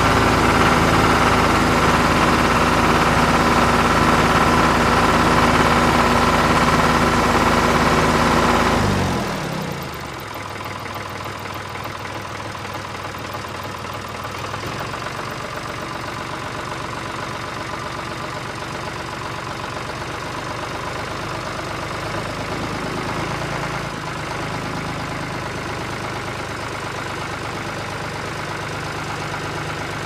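Tractor engine running steadily at a fairly high speed; about nine seconds in, its pitch falls and it settles into a quieter, lower, evenly pulsing idle.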